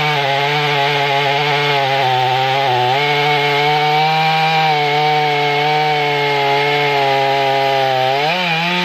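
Stihl 500i fuel-injected chainsaw held at full throttle, cutting steadily through a thick block of dried red oak. The engine note stays steady under load, sags briefly about three seconds in, and wavers near the end as the chain nears the bottom of the cut.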